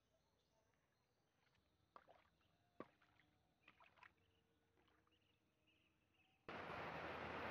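Faint splashes and knocks of a stick prodding floating plastic bottles in shallow river water. About six and a half seconds in, a sudden loud, steady rush of breaking surf.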